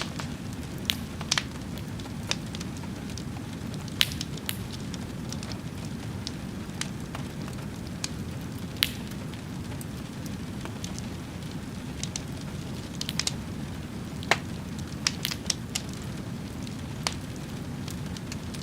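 A fire burning, with irregular sharp crackles and pops over a steady low rumble.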